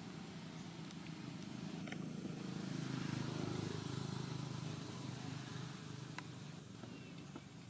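A low engine hum that swells to its loudest midway and then fades, like a motor vehicle passing, with a few faint ticks.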